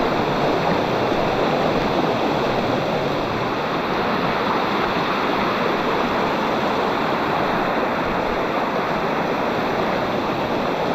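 Mountain stream flowing over rock, a steady rush of water.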